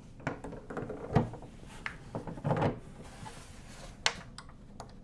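Clicks and knocks of door knob hardware being handled and fitted on a door: a Kwikset Pismo passage knob going on, with one heavier knock about a second in and sharp metallic clicks near the end.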